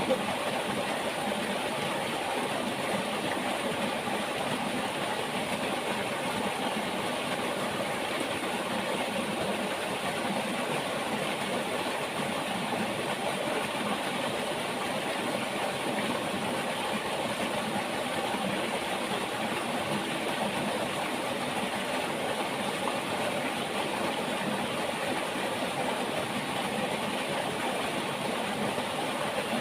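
Steady rush of a flowing river, an even sound of running water with no let-up or change.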